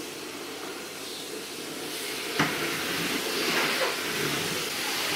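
Steady rushing hiss, with a single sharp click about two and a half seconds in.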